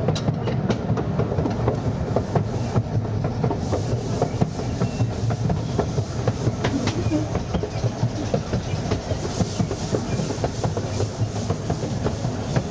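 Narrow-gauge railway carriage running along the track, heard from aboard: a steady rumble with the wheels clicking over rail joints, many irregular clicks throughout.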